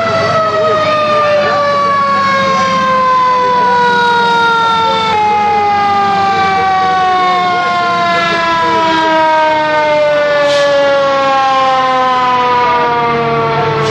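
Fire truck siren winding down, one long tone whose pitch falls slowly and steadily. Fainter wavering siren tones can be heard in the first few seconds.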